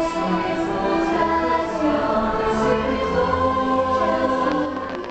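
Fireworks-show soundtrack: a choir singing held notes over orchestral music, playing over the park's speakers, which drops in level just before the end.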